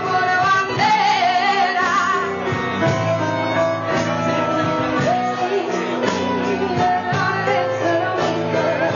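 Live band playing: a woman singing over guitars and a full band.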